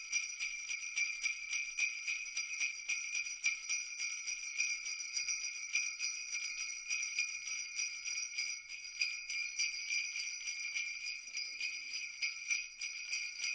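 Sleigh bells shaken rapidly and steadily in a continuous jingle.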